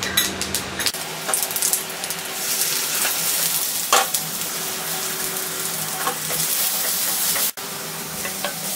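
Oil sizzling in a clay kadai as cumin seeds and then chopped onion and ginger fry, with a wooden spatula stirring. The sizzle builds after a couple of seconds, and there is a sharp knock about four seconds in as the onions are tipped in from a steel plate.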